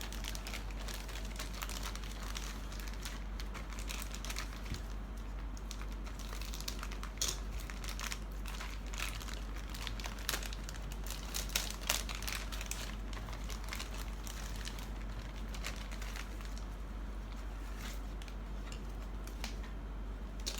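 Plastic bags holding model kit parts crinkling and crackling as they are handled, in many small irregular crackles with a few louder ones around the middle.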